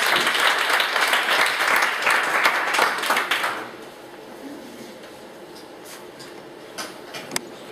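Audience applauding, dying away about three and a half seconds in, then quiet room noise with two short knocks near the end.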